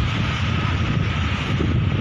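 Strong storm wind buffeting the microphone in a continuous low rumble, over the rushing noise of choppy, wind-whipped lake water.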